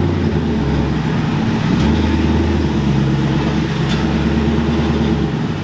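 Ford Mustang convertible's engine running steadily at low speed as the car is driven slowly into a parking spot.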